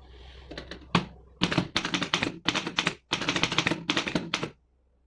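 1926 Remington Portable No. 2 typewriter being test-typed: a single knock about a second in, then two quick runs of keystrokes of about a second and a half each, with a brief pause between them and a short quiet gap near the end.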